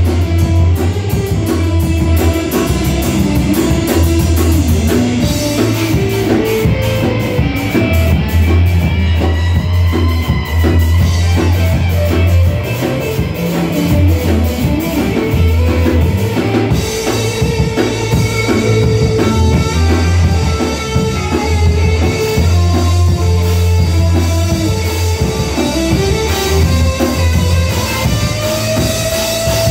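Live three-piece band playing an instrumental ska-style jam: electric guitar, electric bass and drum kit, with a steady bass line under the drums. A single note is held near the end.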